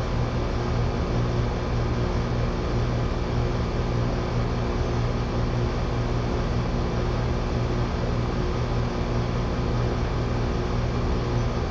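Heat pump system running steadily: an even mechanical noise with a constant electrical hum underneath.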